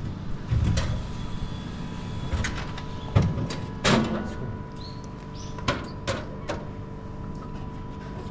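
Ice cream vending machine dispensing a purchase: a series of clunks and clicks from the dispensing mechanism and its retrieval door, the loudest a few seconds in, over a faint steady tone.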